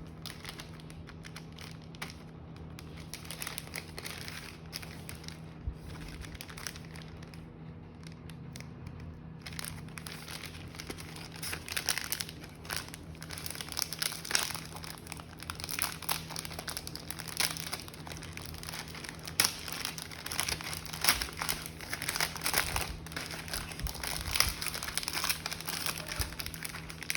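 Plastic snack packet being handled and opened, its crinkly wrapper crackling and rustling in irregular bursts, faint at first and louder and busier from about a third of the way in.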